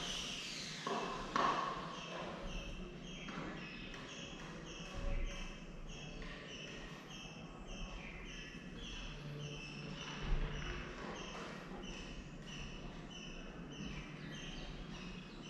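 An animal calling with a steady run of short, high chirps, about two and a half a second, starting about two seconds in. A few soft knocks, the loudest near the start and about ten seconds in.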